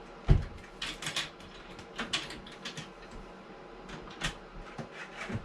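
Hard small objects clicking and clattering irregularly as someone rummages through things, with a sharp knock just after the start.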